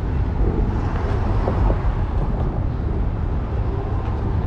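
Steady low rumble of wind on the microphone and wheels rolling on pavement while riding an Exway electric skateboard.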